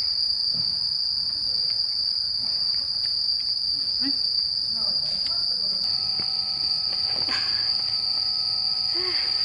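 Crickets trilling in a steady, unbroken high-pitched chorus, with faint voices and a few light clicks underneath.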